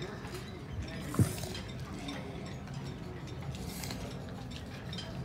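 Small clicks and rustling of handling close to the microphone, with one sharp knock about a second in.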